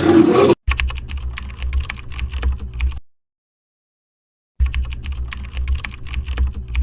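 Computer keyboard typing: rapid, irregular key clicks over a low hum, in two stretches of about two seconds each, broken by a second and a half of dead silence.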